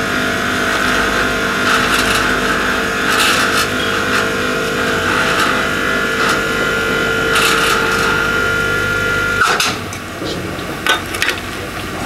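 Electric hoist motor of a boat crane running with a steady whine while lowering a sailboat, stopping with a knock about nine and a half seconds in; a few clicks and knocks follow.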